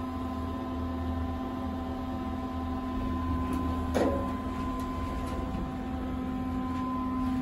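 Elevator cab ventilation fan humming steadily and loudly inside a 2002 Otis elevator car, with one sharp clunk about four seconds in as the car door starts to open on arrival.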